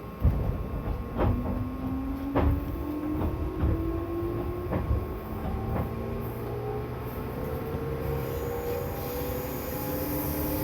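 205 series 1000-subseries electric train pulling away and accelerating: the traction motors whine, rising steadily in pitch, while the wheels click over rail joints.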